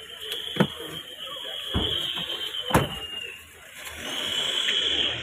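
Car doors being slammed shut: three sharp thumps about a second apart, over a long high-pitched steady tone that stops and comes back near the end.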